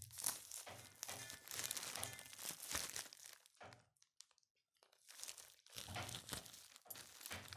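Plastic courier mailer bag crinkling and rustling in bursts as it is handled and opened, with a short pause around four seconds in.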